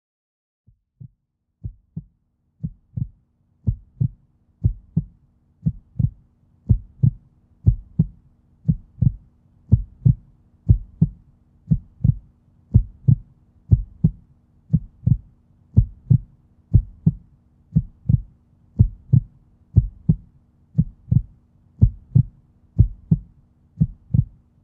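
Heartbeat sound effect: paired lub-dub thumps about once a second, fading in over the first few seconds, over a faint low steady hum.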